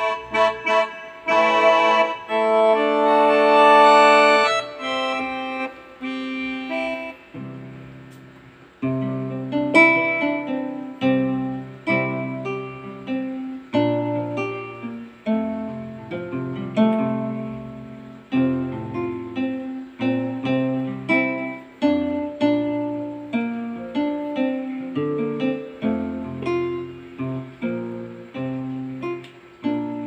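Yamaha PSR-E333 portable keyboard played by hand through its own speakers, demonstrating its built-in voices. Chords ring on in the first few seconds and fade away. From about nine seconds in, a plucked-sounding voice plays a melody over bass notes, each note dying away quickly.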